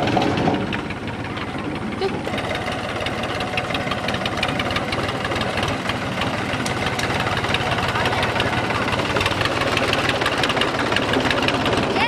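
Diesel farm tractor engine running steadily as it pulls a loaded trailer, with a rapid, even beat of firing strokes.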